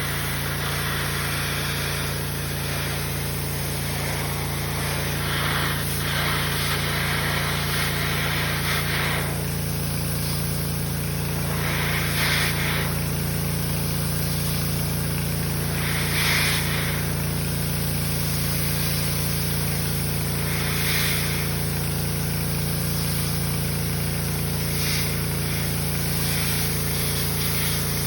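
Engine-driven pressure washer running steadily, with a hissing burst of spray every few seconds as the jet is played over the truck's body to blast off paint that has let go of the bad factory primer.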